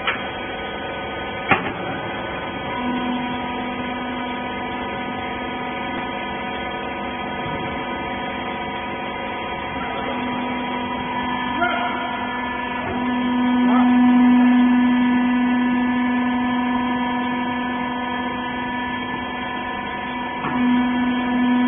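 Hydraulic rag baler's electric motor and pump running with a steady hum, which swells for several seconds past the middle and again near the end as the ram works. A sharp click comes about a second and a half in.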